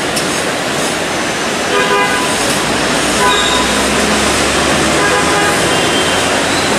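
Train horn sounding in several short blasts, about two, three and five seconds in, over a steady rushing noise, with a low rumble building from about three seconds in.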